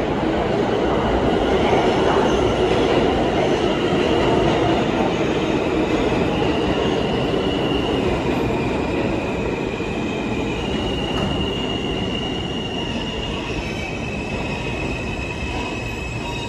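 New York City subway train running through the station on the express track: a heavy rumble of wheels on rail with high, steady wheel squeal tones coming and going, slowly getting quieter toward the end.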